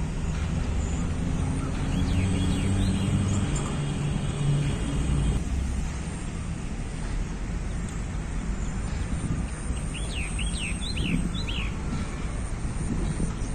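Outdoor field recording with a steady low rumble and an engine-like hum during the first five seconds or so. About ten seconds in, a bird gives a quick run of short chirps.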